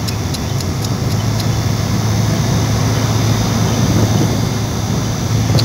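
Steady road noise of a car driving at speed, heard from inside the cabin: engine and tyres with a low, even drone.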